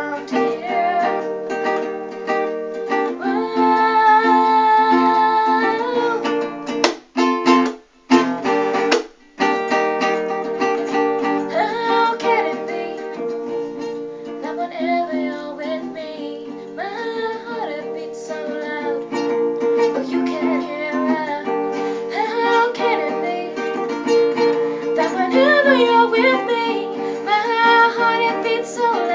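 A woman singing an original song to a plucked acoustic string instrument, likely a ukulele. The music breaks off briefly twice, about seven to nine seconds in.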